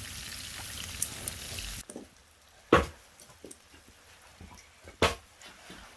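Steak sizzling steadily in a pan, cutting off suddenly about two seconds in. Then it goes quieter, with two sharp knocks a couple of seconds apart and faint ticks between them.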